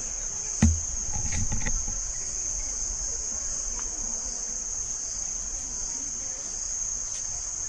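Steady, high-pitched drone of insects in tropical forest. A single thump about a second in, followed by brief low rumbling.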